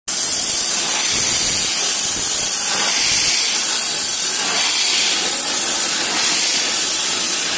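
Loud, steady high-pitched hiss that starts abruptly.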